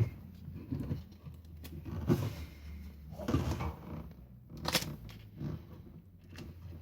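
Scattered knocks, clicks and rustles of tools and parts being handled and moved about, as when rummaging for a sander's missing dust-extraction adapter. The sander itself is not running.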